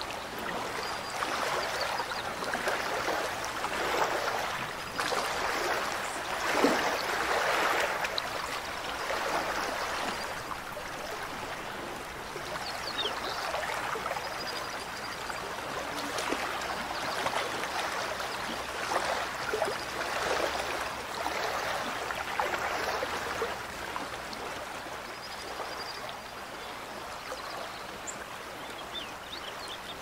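Mountain stream running: a steady rush of water that swells louder in the first third and again in the middle, then eases.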